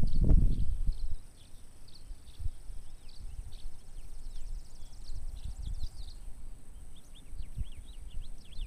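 Small birds chirping and twittering in quick short notes, over wind gusts buffeting the microphone with a low rumble, heaviest in the first second.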